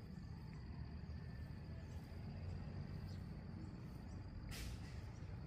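Outdoor riverbank ambience: a steady high insect drone over a low rumble of wind and water, with a short burst of rustling noise about four and a half seconds in.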